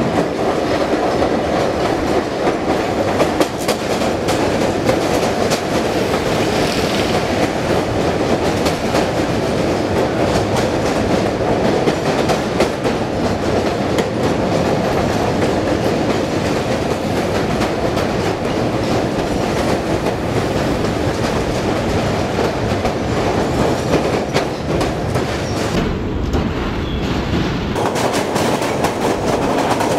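Steady, loud mechanical rattling and clattering with rapid clicks running through it, like a rail car running over track. Near the end the higher part of the sound cuts out for about two seconds, then comes back.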